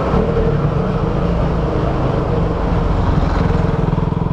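KTM Duke 200's single-cylinder engine running through its stock exhaust as the bike is ridden; near the end the exhaust beat settles into an even pulse.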